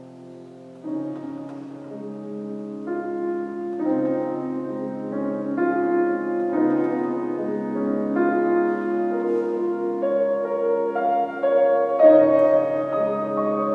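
Grand piano played solo: held chords that change about once a second, growing louder over the first few seconds.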